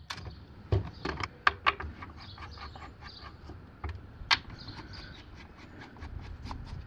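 Small plastic clicks and taps as a pool-cleaner wheel is pressed onto its hub and its centre screw is turned in with a hand Phillips screwdriver. A scatter of light clicks, with a few sharper knocks about a second in and again just past four seconds.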